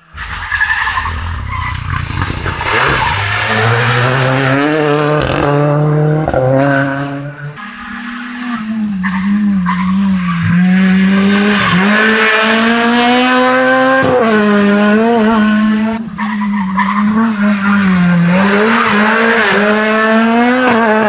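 Rally car engine run hard at high revs as the car approaches along the stage and passes close by. The engine note climbs, then drops sharply several times as it shifts gear and comes off the throttle for the bends.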